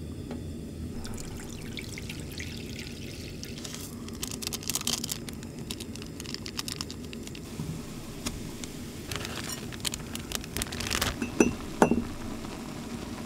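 Spicy ramen broth bubbling in a pot on a portable gas burner, with crisp crinkles and clicks from about four seconds in and again near the end as dried vegetable flakes are shaken in and the dry noodle block goes into the pot.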